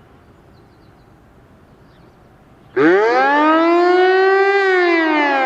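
Hörmann pneumatic high-performance civil-defence siren starting up about halfway in. The tone comes in suddenly, sweeps up quickly, climbs more slowly to a peak and then begins to fall: the first wail of the rising-and-falling 'warning of the population' signal.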